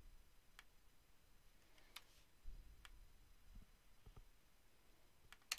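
Near silence with a few faint computer-mouse clicks, scattered singly, then two in quick succession near the end.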